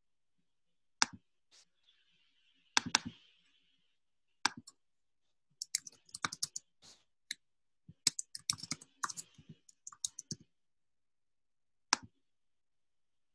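Typing on a computer keyboard as a username and password are entered, in two quick runs of key clicks, with a few separate clicks before them and a single click near the end.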